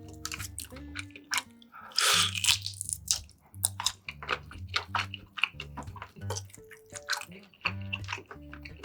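Close-miked eating: a person biting and chewing food, with many short wet clicks and a loud bite about two seconds in.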